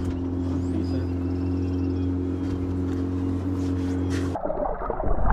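A boat's outboard motor idles with a steady low hum, with faint bird chirps above it. About four seconds in the hum stops abruptly and a brief, louder rough noise follows.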